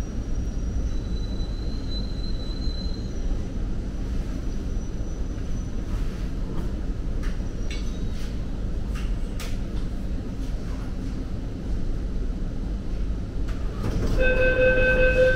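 Steady low rumble of a Delhi Metro car at a station platform, with a few faint clicks. About a second from the end, a loud steady electronic door warning tone sounds as the sliding doors begin to open.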